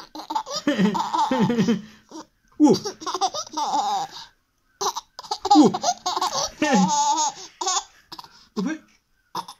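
Toddler girl laughing in three long bouts with short breaks between them, then a few shorter laughs near the end.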